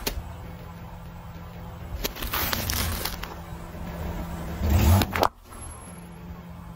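Car tyre rolling onto and crushing plastic containers: crackling and crunching plastic in bursts, the loudest crunch about five seconds in, over a steady low hum.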